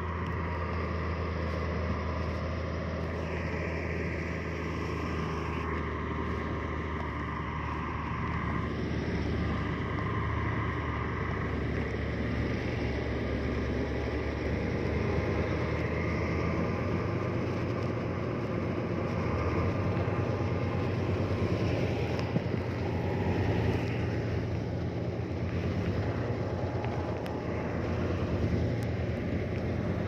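Diesel engine of a heavy earthmoving machine running steadily under load, getting a little louder a couple of times.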